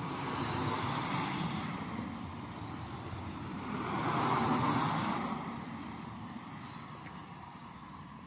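Cars passing on the road, a rushing noise that swells about a second in, then a louder pass around four to five seconds in that fades away.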